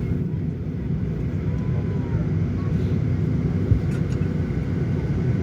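Steady low rumble of cabin noise inside a Boeing 737-900ER at pushback, with a single dull thump about two-thirds of the way in.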